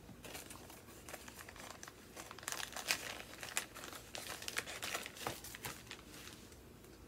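Packaging crinkling as an item is unwrapped by hand: an irregular run of crackles, loudest about three seconds in.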